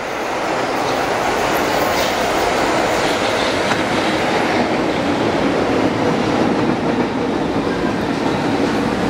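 Milan Metro train arriving at an underground station and running past along the platform: a loud, steady rumble of wheels on rail that builds over about the first second and then holds.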